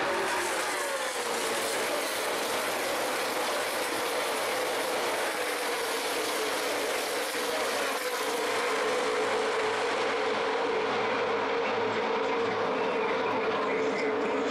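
Field of NASCAR Nationwide Series stock cars with V8 engines at racing speed, a loud continuous drone. Its pitch falls in the first couple of seconds as cars pass.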